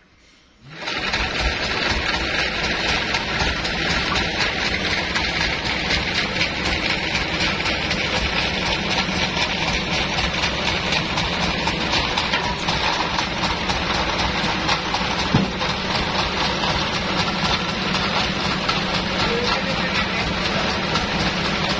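Sawmill machinery, the diesel engine driving the bandsaw, running steadily with a dense, even drone. It starts abruptly just under a second in.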